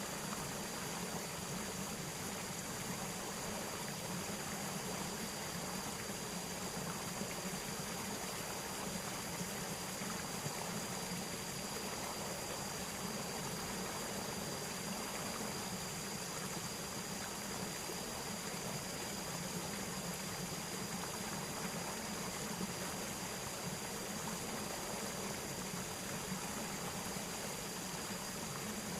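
Steady rushing of flowing water, with a steady high-pitched whine over it and no change throughout.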